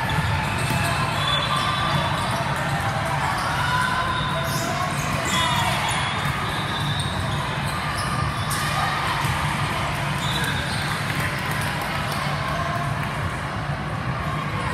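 Volleyball being served and hit back and forth in a rally, giving sharp thuds, about 4 to 6 seconds in and again near 8.5 seconds. Steady crowd and player voices echo through a large gym.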